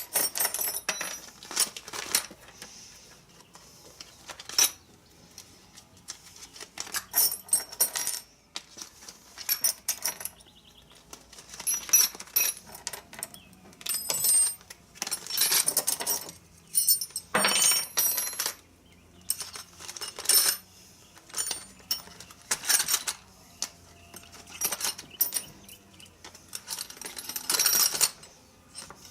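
Metal Allen keys clinking and rattling against each other in repeated short bursts as they are handled and put away.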